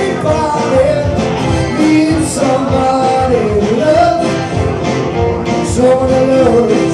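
Live band playing: electric guitar, bass, keyboards and drums, with a man singing lead.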